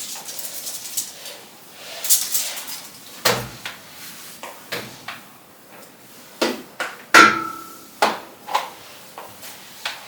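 Household objects being handled and set down: a string of knocks and clatters, with one sharp clink about seven seconds in that rings briefly like a dish or glass.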